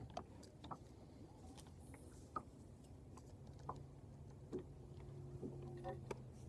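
Quiet, with scattered faint clicks and taps, and a faint steady low hum that comes in about halfway through.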